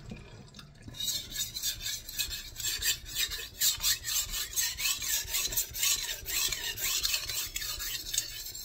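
Nitro-V steel gyuto knife being sharpened on a wet 1000-grit Shapton Kuromaku whetstone. The blade edge rasps across the stone in quick, even back-and-forth strokes, starting about a second in, grinding a new edge.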